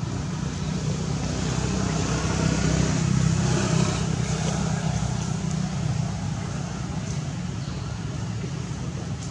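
Steady low rumble of outdoor background noise, swelling louder between about two and four seconds in and then easing off.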